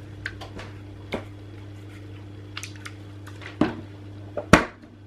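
Light plastic clicks and taps from a battery charger's cable and three-pin plug being handled, with the sharpest click about four and a half seconds in as the plug is pushed into a mains extension socket. A steady low hum runs underneath.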